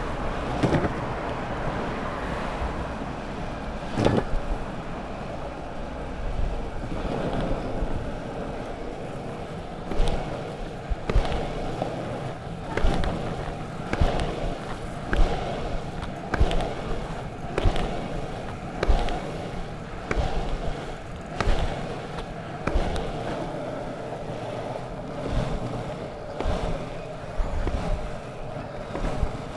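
Longboard wheels rolling over asphalt with a steady rumble. From about a third of the way in, a sharp knock comes a little more than once a second as the rider kick-pushes along.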